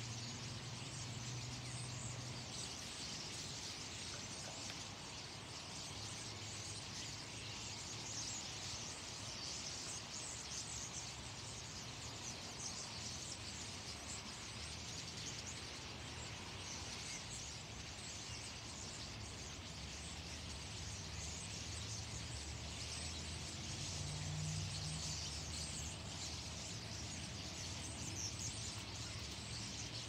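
A large flock of birds perched in conifer treetops, calling all at once in a dense, unbroken chatter of many short high calls.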